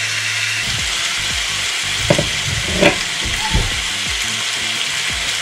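Olive oil sizzling steadily in a frying pan as skin-on chicken pieces are laid in, with a few soft knocks between about two and four seconds in as pieces go down.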